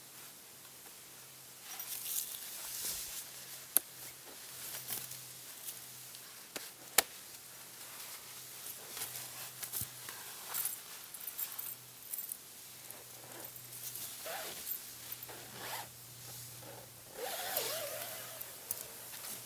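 A zipper and the nylon fabric of a camping hammock being worked by hand, rustling and zipping in irregular spurts. There are two sharp clicks, about 4 and 7 seconds in.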